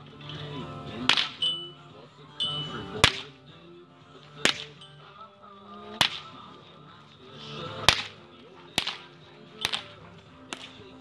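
Agitation whip cracking sharply about eight times, at uneven gaps of one to two seconds.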